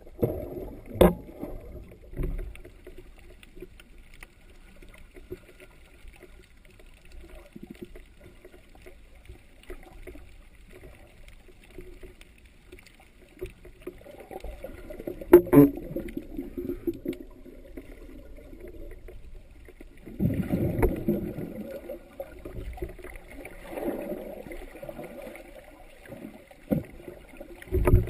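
Muffled water movement heard underwater through a GoPro Hero2's sealed dive housing: low sloshing and gurgling, with two sharp knocks, one about a second in and one midway, and louder surges of water noise near the end.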